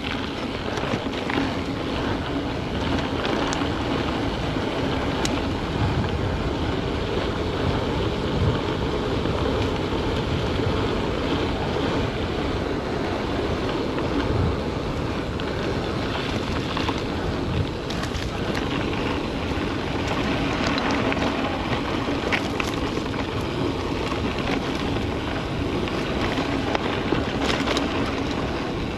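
Wind buffeting the microphone over the steady rumble of a mountain bike rolling along a trail, with scattered faint clicks and rattles.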